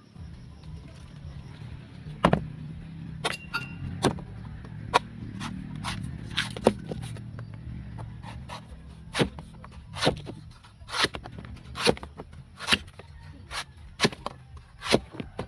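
Machete chopping slices off a young green coconut against a wooden board: sharp blade strikes, irregular at first, then settling to about one stroke a second.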